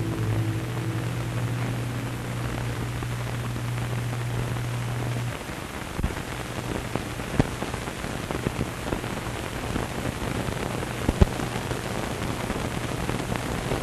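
The last low chord of the closing music holds for about the first five seconds and then cuts off, leaving the steady hiss of an old film soundtrack with scattered clicks and pops.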